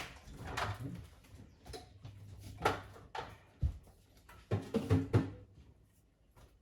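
Kitchen handling noises: a few sharp knocks and clicks, a low thump about three and a half seconds in, and a quick cluster of clatters around five seconds in.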